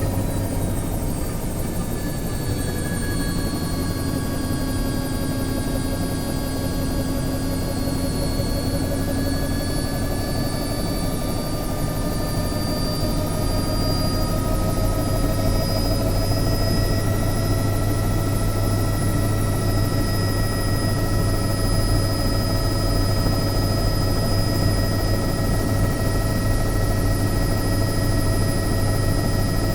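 Bell 505 Jet Ranger X helicopter heard from inside the cabin: the Arrius turboshaft's whine over a steady low rotor beat. The whine sags slightly at first, rises in pitch a little under halfway through, then holds steady.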